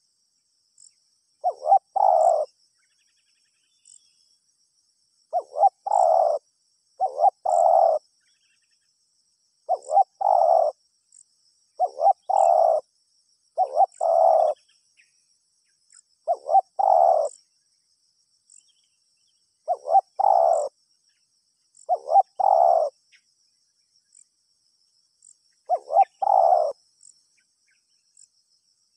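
Spotted dove (tekukur) cooing, a short call of two or three coos repeated about every two seconds, about a dozen times. A faint high chirping runs underneath.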